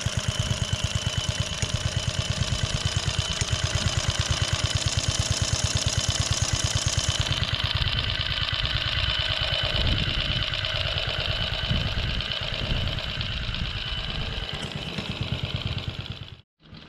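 Vintage Ransomes Marquis cylinder lawn mower's small petrol engine running steadily while mowing, with a rapid, even firing beat. A high hiss over the engine falls away about halfway through, and the sound cuts off suddenly near the end.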